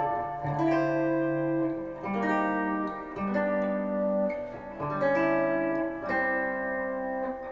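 Semi-hollow electric guitar strumming a chord progression, moving to a new chord about every second. Each chord is hit with a downward stab and a quick upstroke that brings out the upper strings.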